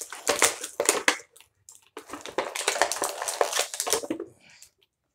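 Clear plastic blister packaging crinkling and crackling as it is handled, in two spells separated by a short pause, then dying away shortly before the end.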